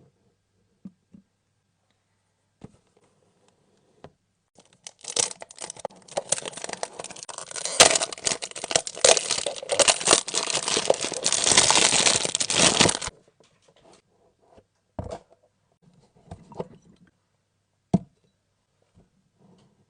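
Packaging being torn and crinkled open, a dense crackling rustle lasting about eight seconds, then a few light knocks and taps as the contents are handled.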